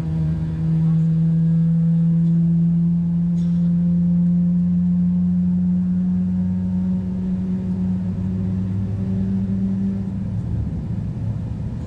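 Boeing 777-300ER's GE90 jet engines heard from inside the cabin: a steady low hum whose pitch creeps slightly upward, over a low rumble. About ten seconds in the hum fades and a rougher rumble takes over.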